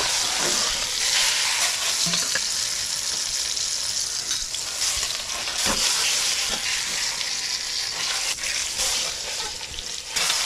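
Spice-rubbed pork shoulder searing in a hot Dutch oven, the fat sizzling and spitting in a steady hiss. A few short scrapes and knocks of a metal spatula and tongs sound against the pot as the meat is turned to brown another side.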